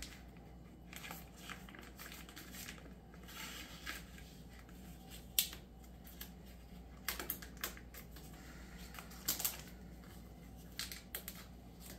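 Faint, scattered light clicks and taps with soft rustling: hands handling a raw whole chicken on a kitchen counter.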